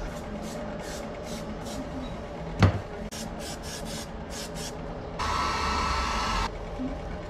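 Hands rubbing and smoothing a car's fabric headliner in quick, scratchy strokes, with one sharp knock about two and a half seconds in. Near the end a small corded handheld power tool runs steadily for about a second and a half, then cuts off.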